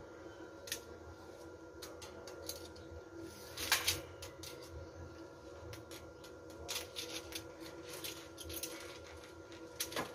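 Scattered light clicks and clinks of a steel tape measure being handled and laid against a rebar cage, with the loudest cluster about four seconds in. A faint steady hum runs underneath.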